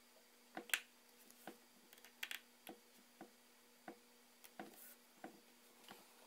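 Scattered light clicks and taps, about a dozen in irregular succession, with the sharpest about three-quarters of a second in: small tools and iPhone 4S parts being handled while the phone is reassembled. A faint steady hum lies underneath.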